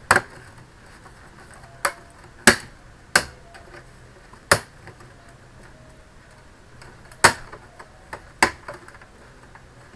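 Plastic retaining clips of an ASUS V222U all-in-one's rear frame snapping loose as the frame is pried off: about seven sharp clicks at irregular intervals.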